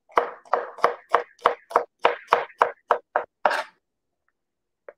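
Kitchen knife chopping garlic on a plastic cutting board: a run of about a dozen even taps, roughly three a second, that then stops.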